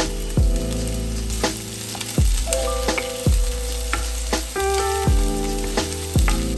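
Chopped onion sizzling in a hot nonstick sauté pan as it is stirred with a wooden spatula, under background music with a bass beat about once a second.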